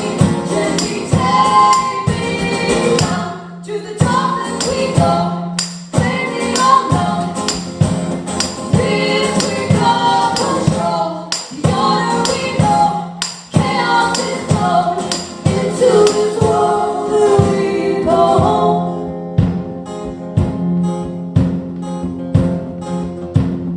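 Live band performing a song: voices singing in harmony over guitar with a steady tambourine beat. The singing stops about 19 seconds in and the instruments carry on.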